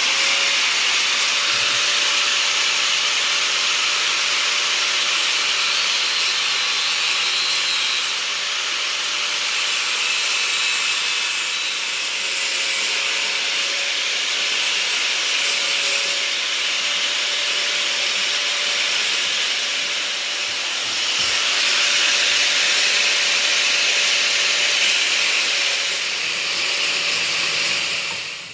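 A small power tool's motor spins up and runs steadily with a loud hiss and a steady hum, then shuts off near the end.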